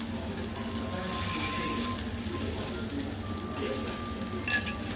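Wagyu sirloin steak sizzling on a steel teppanyaki griddle, loudest about a second in, with a single sharp clink near the end.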